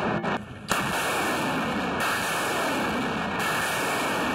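BM-27 Uragan multiple rocket launcher firing a volley of 220 mm rockets. After a brief quieter moment, the launches set in just under a second in as one continuous, loud rush of rocket-motor noise.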